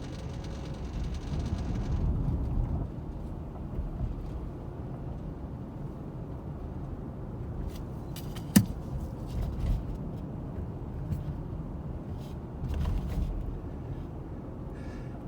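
Steady low rumble, with a hiss over it for the first two seconds that stops abruptly, and a single sharp click about eight and a half seconds in.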